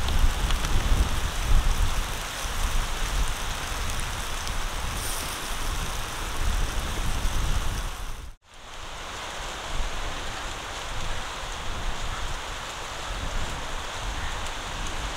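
Chicken sizzling in a wire grill basket over glowing charcoal: a steady hiss, with gusts of low rumble through the first half. The sound drops out for an instant about eight seconds in and comes back as a softer, even hiss.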